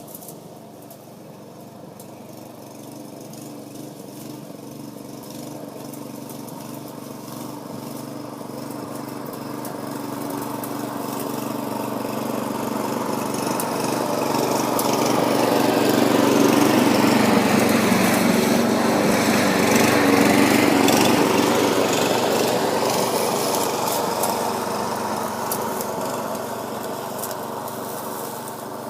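Self-propelled petrol lawnmower running steadily while cutting grass. It grows louder as it draws near, loudest in the middle, then fades as it moves away.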